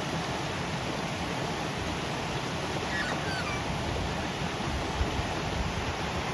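Waterfall rushing steadily. A few faint, short chirps, likely small birds, come about halfway through.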